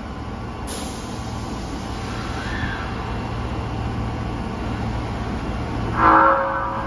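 Osaka Metro 22 series subway train standing at the platform with a steady low hum from its equipment. About a second in there is a short hiss as the doors close. Near the end a louder burst of hiss and a low tone from the motors mark the train starting to pull away.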